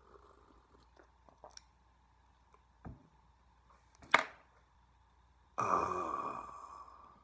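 A man lets out a long, breathy sigh of satisfaction after a sip of hot coffee, starting sharply and fading away over about a second and a half. Just over a second before it comes a single sharp click, with a few faint small clicks earlier.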